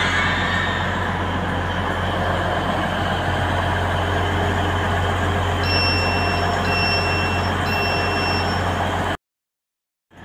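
Grand Central Class 180 diesel multiple unit's engines running at a standstill, a steady low hum. About six seconds in, three high beeps sound in a row. The sound cuts off abruptly near the end.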